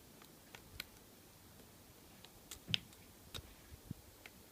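Faint, irregular clicks of a lock pick working the pin stacks of a Master Lock 410 lockout-tagout padlock under tension-wrench pressure, about eight ticks in all with the loudest past the middle. The pins are being probed one by one while the lock sits in a false set.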